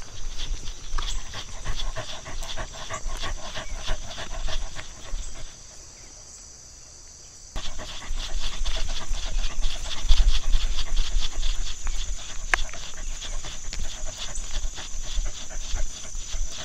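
A dog panting rapidly in an even rhythm, stopping for about two seconds midway and then carrying on.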